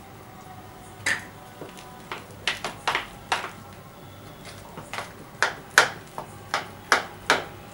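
Hand beating thick urad dal batter in a plastic bowl: a string of about a dozen sharp, irregular slaps and taps as the hand strikes the batter and the bowl.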